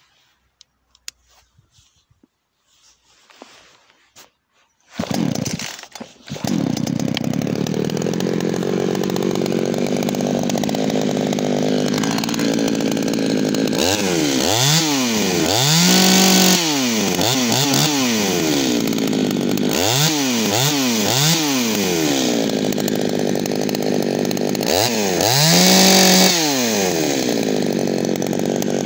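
An Echo CS350-WES two-stroke chainsaw fires up about five seconds in after a few faint clicks, then settles to a steady idle on its newly fitted aftermarket carburettor, slightly leaned out. From about halfway the throttle is blipped again and again, revs rising and falling, with a couple of longer pulls held at high revs.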